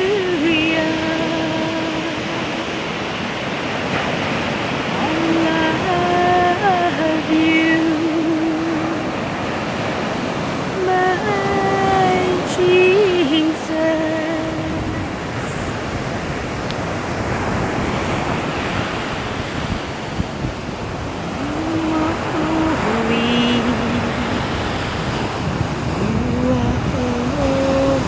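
Ocean surf breaking and washing up a sandy shore, a steady rushing. Over it a voice hums a slow tune in long held notes that come and go, with a wavering at the ends of some notes.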